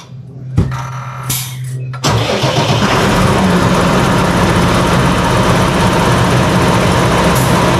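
Tractor's diesel engine being started: a click, a short spell of starter cranking with a high whine, then the engine catches about two seconds in and runs steadily.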